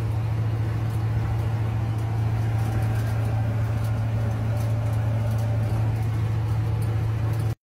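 Steady drone of engine and road noise inside an older vehicle's cabin while cruising at highway speed. It cuts off suddenly near the end.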